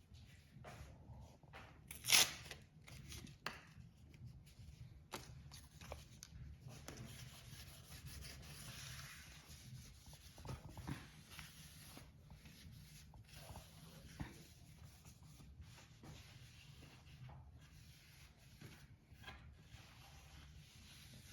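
Rubber fridge door seal being handled by hand: intermittent rubbing, scraping and tearing sounds with scattered small clicks, and one sharp snap about two seconds in.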